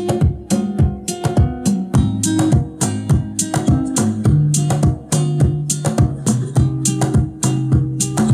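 Acoustic guitar music with quick, evenly spaced plucked and strummed chords, played back through a two-way coaxial car speaker under a listening test.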